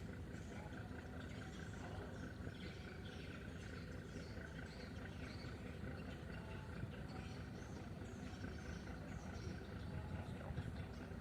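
Steady low rumble of a ship's engine, with faint high chirping over it.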